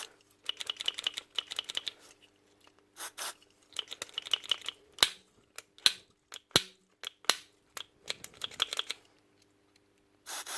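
Quick bursts of small plastic clicks and rattles from the trigger of a Milwaukee M12 stubby impact gun being worked while contact cleaner is worked into its dirty trigger switch, with a few sharper single clicks about five to seven seconds in.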